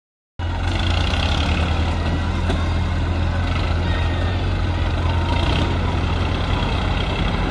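TAFE tractor's diesel engine running steadily while it pulls a loaded soil trolley, starting about half a second in.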